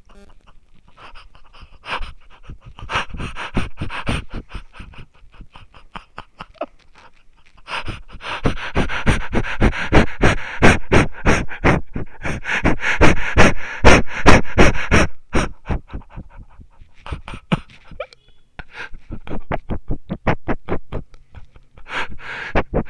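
Rapid panting breaths in a steady rhythm of about three a second. They grow louder and denser about a third of the way in, then thin out and come in shorter runs near the end.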